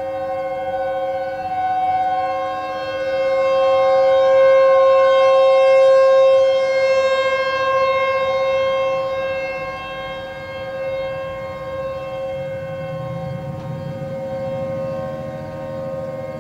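Outdoor civil-defense warning sirens sounding a steady tone, several pitches heard together. They swell to their loudest about halfway through and ease off slowly after.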